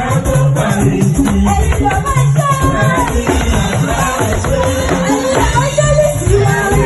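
Music with singing, shaken rattles and a heavy bass line.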